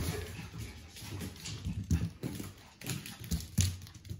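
Light, irregular footsteps on a wooden floor: a Shiba Inu puppy's paws tapping as it trots, along with a person's steps.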